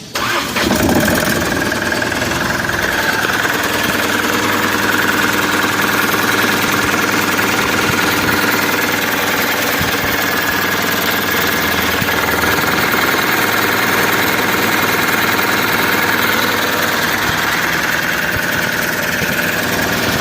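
Mahindra Supro engine starting and settling into a steady, even idle with a newly replaced camshaft position sensor fitted to cure a P0341 camshaft sensor signal error.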